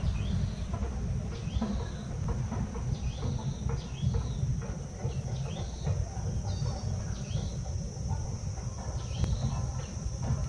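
Short, high bird chirps repeating about once a second, over a steady low rumble and a thin, steady high-pitched tone.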